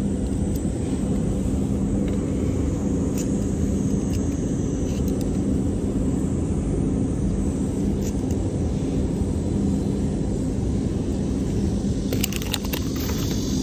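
Steady low rumble with a constant hum, like a distant engine. A few sharp clicks come near the end.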